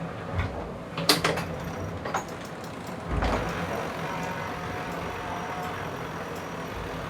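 Steady hum and rushing noise aboard an IMOCA racing sailboat under way, with sharp knocks about one and two seconds in and a low thump about three seconds in.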